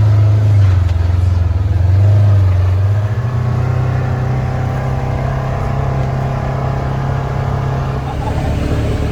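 Engine of a vehicle running steadily as it drives along, a little louder in the first few seconds, then settling to an even hum.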